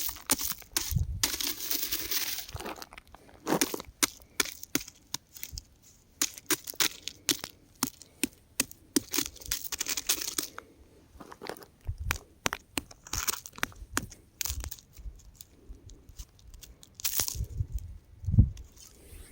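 Rock crumbling and breaking apart: an irregular run of sharp cracks, crunches and gritty crackling bursts, with a few dull low thuds among them.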